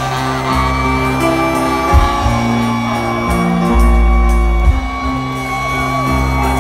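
Live ska band playing on stage, heard from the crowd. Held bass notes change every second or so under guitar, and a long high note is held from about half a second in.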